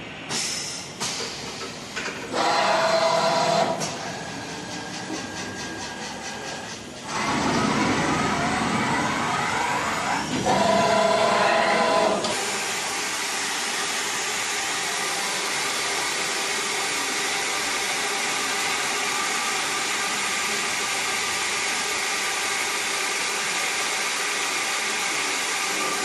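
Five-axis CNC profile machining center working an aluminium profile. Its spindle whines in two short spells amid cutting noise. About halfway through the sound settles into a steady, even hiss that runs on.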